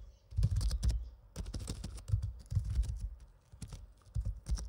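Computer keyboard keys being typed: irregular, unhurried keystroke clicks as a short word is entered.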